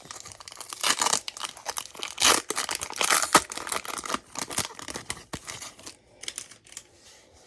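Pokémon card booster pack's foil wrapper being torn and crinkled open in a quick run of tearing bursts. The wrapper is hard to open. The tearing dies down about six seconds in.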